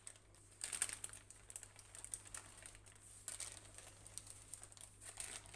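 Baking paper rustling and crinkling in several soft bursts as it is peeled off the underside of a freshly baked genoise sponge sheet, coming away easily.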